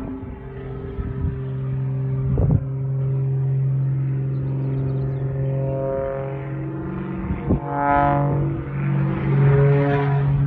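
Aerobatic propeller plane's piston engine droning steadily during a vertical climb, its note wavering and shifting in pitch in the second half as the plane stalls and tumbles. Two brief thumps cut in, about two and a half seconds in and again near eight seconds.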